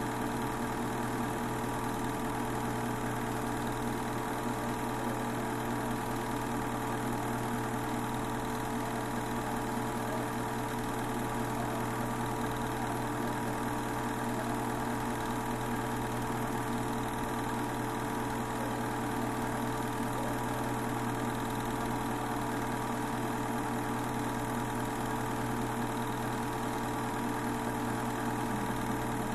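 Steady hum of a movie projector's motor and fan running, unchanging throughout.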